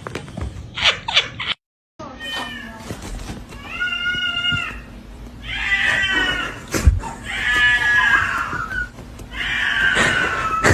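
A cat giving four long, drawn-out meows in a row, each lasting about a second.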